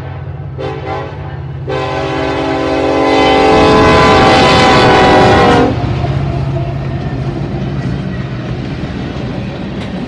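Union Pacific GE AC44CW locomotive's Nathan K5HL five-chime air horn blowing for a grade crossing: a short blast about half a second in, then one long blast that grows louder as the locomotive comes up and cuts off just before six seconds in. Then the locomotives and grain hopper cars roll past with a steady rumble of wheels on rail.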